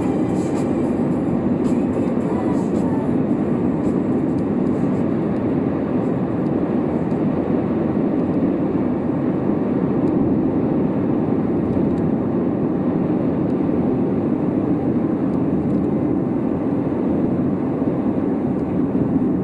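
Steady road noise inside a moving car: tyres on the road and the engine running at a constant cruising speed, an even rumble with no change.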